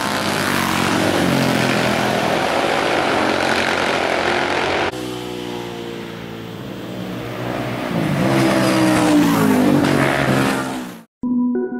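Racing motorcycles passing at speed at high revs, the engine note dropping in pitch as each goes by. About five seconds in the sound jumps to another bike approaching, its note rising and then falling as it passes. Near the end the engine sound cuts off and music begins.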